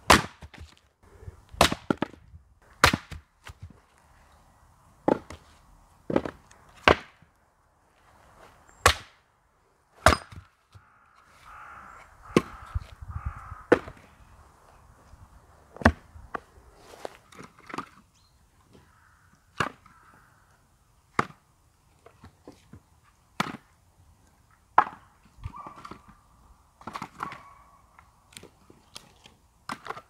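Splitting axe chopping firewood logs on a wooden chopping block: a sharp crack with each blow, coming irregularly about every second or two, with split pieces of wood knocking together between the blows.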